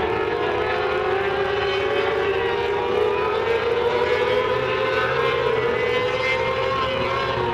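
A pack of mini sprint race cars at racing speed, their engines making a steady overlapping whine whose pitch slowly rises and falls as they go around the track.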